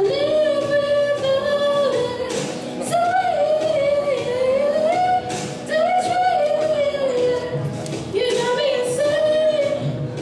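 A female voice singing a song, a clear melody that rises and falls in sustained phrases with short breaks between them.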